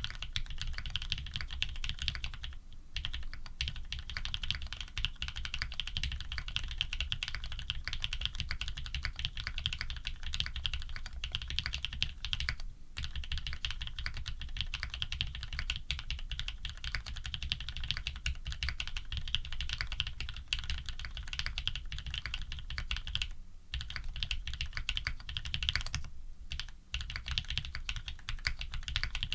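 Continuous typing on a Think 6.5 v2 custom mechanical keyboard with Cherry Black housing + Cream stem switches, an FR4 plate and PBT keycaps: a dense stream of keystroke clacks with a few short breaks.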